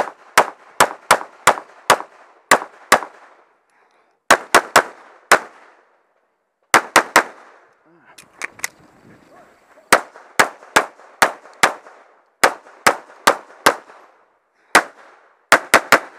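Semi-automatic pistol fired in rapid strings of two to four shots, with pauses of about a second between strings, during a timed practical-shooting stage run.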